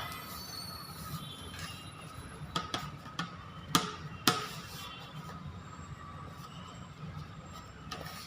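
Wheat-flour cookie dough being kneaded by hand in a bowl: a few sharp taps and knocks from about two and a half to four and a half seconds in, over a steady low hum.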